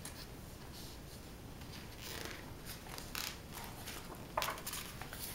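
Quiet paper rustling and brushing as a picture book's page is turned by hand, with a few short swishes.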